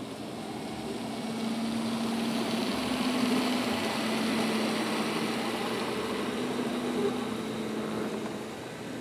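N scale model freight train running past close by: the small electric motors of its model diesel locomotives give a steady whirring hum over the rumble of wheels rolling on the rails. It grows louder over the first few seconds as the locomotives come up, then holds as the cars roll by.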